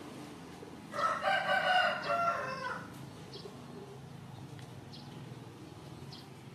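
One long animal call of a little under two seconds, a clear pitched cry that drops slightly in pitch at the end. It comes about a second in, over steady outdoor background noise.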